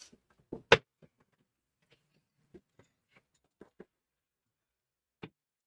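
A few knocks and bumps as people sit down at a desk: two sharp thumps just under a second in, the second one loud, then a handful of faint taps and clicks, with one more knock near the end.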